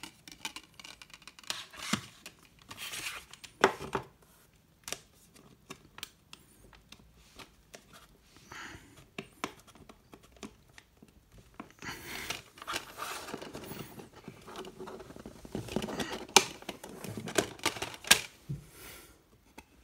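Plastic Blu-ray case being handled: scattered clicks, taps and rustles as a disc is pressed on and lifted off its holder. A few sharp plastic clicks stand out, the loudest a few seconds in and near the end.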